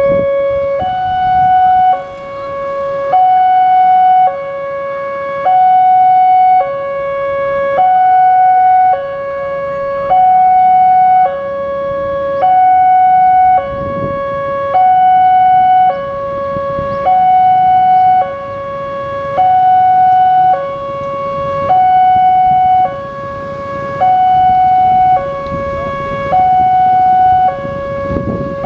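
Indonesian railway level-crossing alarm sounding: an electronic two-tone signal alternating steadily between a lower and a higher tone, each held about a second, warning that the barriers are down for an approaching train.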